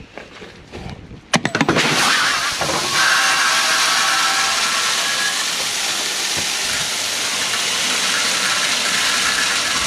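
Shelled corn rushing out of a John Deere combine's jammed clean grain elevator and auger as it is opened, starting with a few clicks about a second in and then a steady rushing hiss. It is the sign of a plugged elevator after the drive broke.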